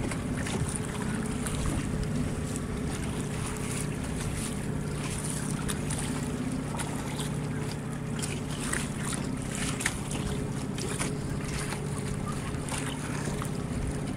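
Water splashing and lapping against the hull of a small boat under way, with wind buffeting the microphone and a steady low hum underneath.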